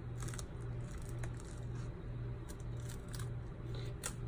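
Pomegranate rind cracking and tearing in small crackles as fingers pry the scored top cap off the fruit, with one sharper crack near the end. A steady low hum runs underneath.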